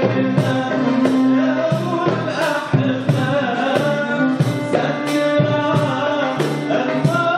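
Live Arabic band music: a darbuka keeps a steady beat under keyboard and violin, with a man singing over it.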